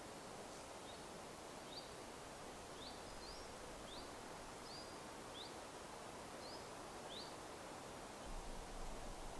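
A small bird giving short rising chirps, about one a second, over a faint steady woodland hiss; the chirps stop a little past halfway, and a low rumble comes in near the end.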